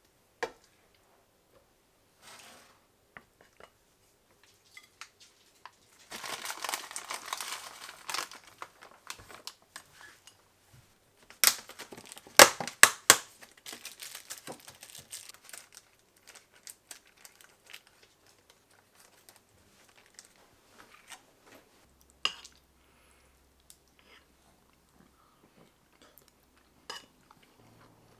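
Thin clear plastic food container being handled: a spell of crinkling, then several sharp plastic snaps and clicks as it is pried open.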